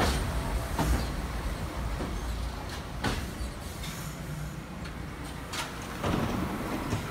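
An R142 subway train pulling out of an elevated station, its low rumble fading as it goes, with a few sharp wheel clicks over the rail joints.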